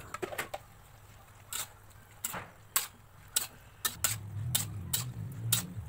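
Spatula scraping and knocking against a wok as noodles are stir-fried, in irregular strokes about every half second. A low hum joins about four seconds in.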